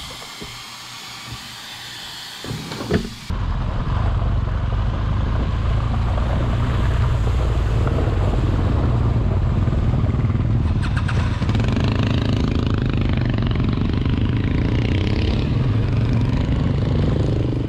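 An air-powered vacuum brake bleeder hissing, cut off suddenly after about three seconds. Then an adventure motorcycle is heard riding from an onboard camera: the engine runs steadily under heavy wind noise, fading out at the end.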